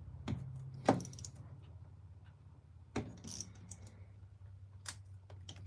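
Metal clicks and clinks as water-pump pliers grip a turbocharger cartridge while its compressor-wheel nut is tightened: about five short, sharp clicks spread out, over a low steady hum.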